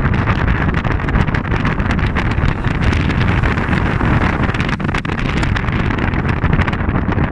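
Wind buffeting the microphone over the steady running and road noise of a vehicle driving on a rough gravel mountain road, heard from on board.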